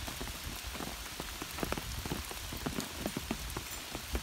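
Rain falling steadily, with many close individual raindrops striking irregularly, several a second.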